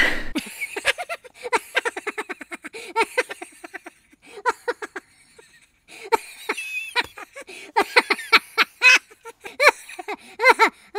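A woman laughing in quick, high-pitched bursts, short 'ha-ha' pulses that come in several runs.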